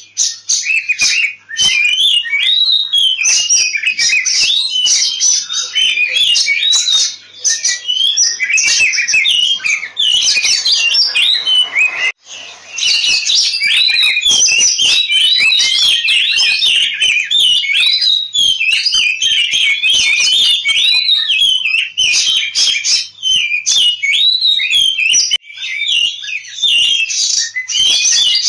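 Oriental magpie-robin singing its agitated fighting song: a fast, unbroken run of varied whistles and chirps, with a short break about twelve seconds in.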